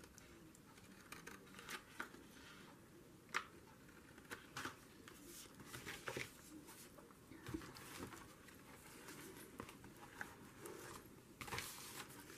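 Faint, scattered snips of scissors cutting through paper card, with light paper rustling; the rustling grows louder near the end as the paper pages are handled and pressed flat.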